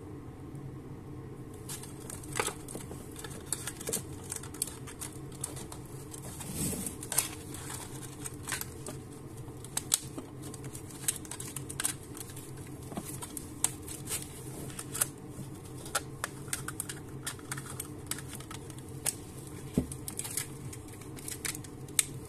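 A steel piston ring being worked over a piston along a plastic-bottle guide strip: irregular light clicks and scrapes of metal against plastic, starting about two seconds in, over a steady low hum.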